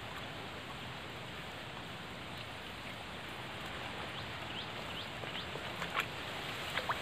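Steady hiss of running water at the river, even throughout, with a few faint clicks and short chirps about four to six seconds in.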